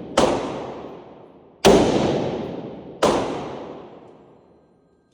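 Three gunshots about a second and a half apart, each fading out in a long echo.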